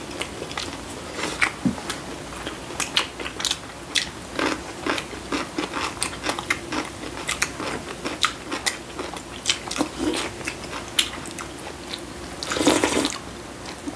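Two people eating noodle soup: chewing and slurping with many short, irregular clicks, and a longer slurp of broth from a bowl near the end.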